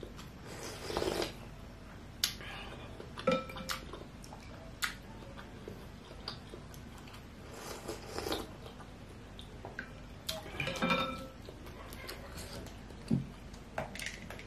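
Soup broth slurped from a plastic spoon in a few short sips, with sharp clicks of the spoon against the bowl in between.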